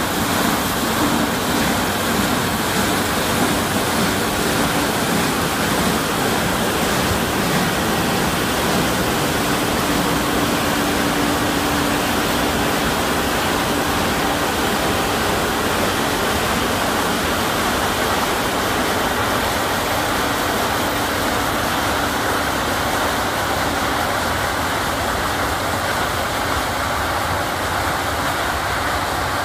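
Claas Lexion 760 TerraTrac combine harvester cutting standing maize with a 10-row corn header: a loud, steady din of engine and threshing machinery with a faint low hum.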